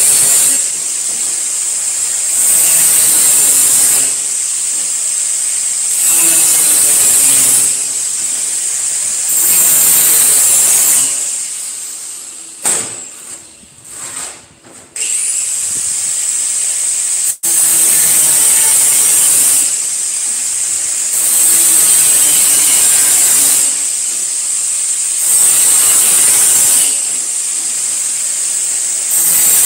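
Electric angle grinder working the surface of thin galvanized sheet metal in repeated passes, a high grinding noise that swells each time the disc bears on the sheet, every two seconds or so. About halfway through the grinder is switched off and spins down, then starts up again.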